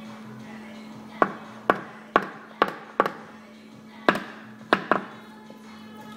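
A tool tapping sharply on a car's sheet-metal body panel: eight quick taps, five about half a second apart, then three more after a short pause, over a steady low hum.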